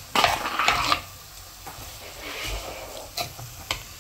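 A metal spoon stirs and scrapes frying onion-tomato masala in a clay pot. The scraping is loudest in the first second, and a few sharp clicks of the spoon against the pot come near the end.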